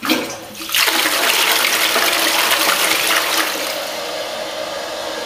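Toilet flushing: a sudden gush of water, loudest for about two and a half seconds, then settling about three and a half seconds in into a steadier, quieter rush of water.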